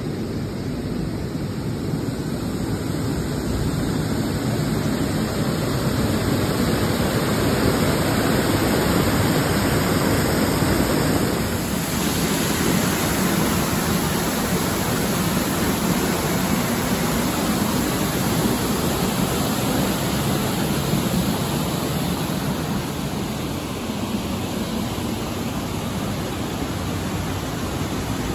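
Water gushing through the sluices of a canal lock gate: a loud, steady rush with no break.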